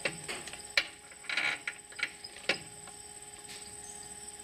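A few sharp clicks and a short scraping rustle as a handheld digital multimeter and its test probes are handled and pressed against the terminals and plastic enclosure of a solar combiner box.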